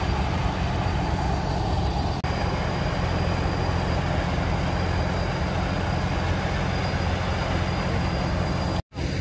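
Rice combine harvester's engine running steadily with a low, even drone. The sound drops out for an instant about two seconds in and cuts to silence briefly near the end.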